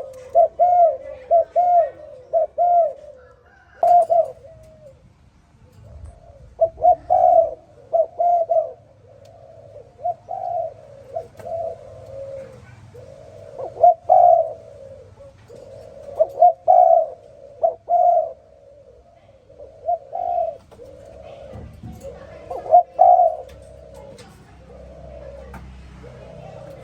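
Spotted dove cooing: phrases of several low, mellow coos, repeated every few seconds with short pauses between. A sharp click about four seconds in.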